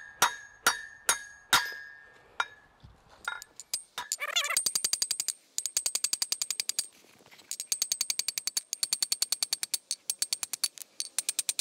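Hammer striking a punch to drive wheel studs out of a brake rotor hub: a few ringing metal blows in the first two seconds, then a fast, even run of sharp clicking strikes about ten a second, with short breaks.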